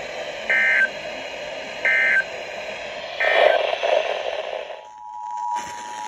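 Weather radio playing static hiss, then three short warbling digital EAS/SAME data bursts about a second apart: the end-of-message code closing the NOAA Weather Radio tornado warning. A louder rush of noise follows. Near the end, the steady two-tone EAS attention signal starts as the FM station's alert begins.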